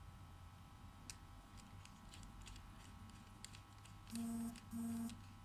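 Faint light clicks of small parts and tools being handled during a phone repair, then two short identical buzzes of about half a second each near the end.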